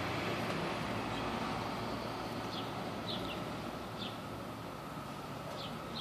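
Brood II periodical cicadas chorusing in the background: a steady, unbroken drone, with a few short high chirps over it and a low background rumble.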